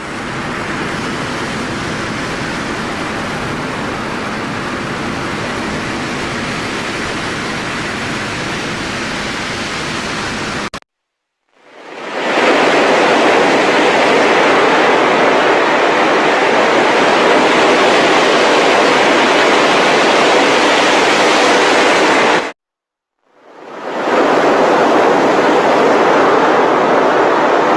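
Steady hissing noise like static, in three long stretches with two short silences between them. The later two stretches swell in gradually and then cut off abruptly, as a reversed sound does.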